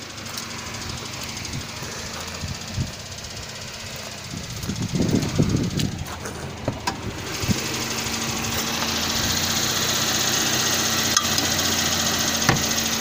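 A car engine running, with a few sharp knocks or clicks; it gets louder and steadier about eight seconds in.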